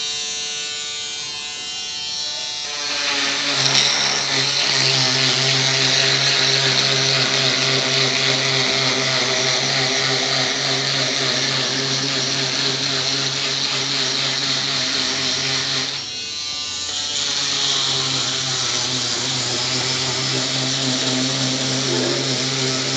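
Small handheld electric cutting machine running. A steady motor whine is joined about three seconds in by a loud, rough cutting noise. The noise lets up briefly about two-thirds of the way through, then carries on.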